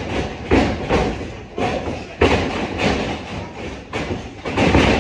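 Wrestlers' feet and bodies hitting a wrestling ring's canvas-covered boards as they run and grapple: a quick series of heavy thuds, about seven in five seconds, each with a short rattle of the ring.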